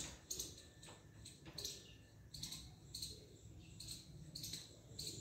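Indian peacock's beak pecking food off a hard stone floor: faint, irregular sharp clicks, about one or two a second.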